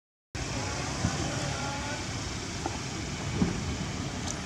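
Steady low rumble of road traffic, with a few faint short chirps and a couple of light clicks over it. The sound drops out briefly right at the start.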